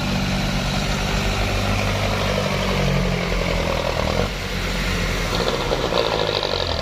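Heavy diesel vehicle engine running at low revs as it passes through a sharp bend. Its note falls and changes about four seconds in.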